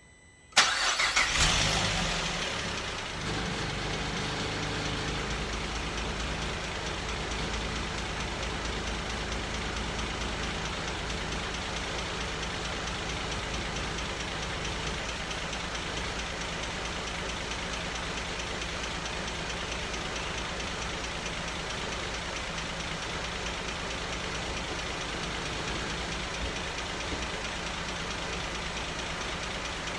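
Cadillac 3.6-litre V6 starting for the first time after a full rebuild. It catches suddenly just after the start, runs loudest for about two seconds, then settles to a steady idle about three seconds in.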